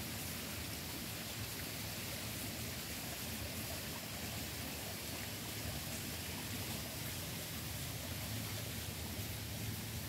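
Steady, even outdoor ambient noise under a forest canopy, with no distinct calls or events.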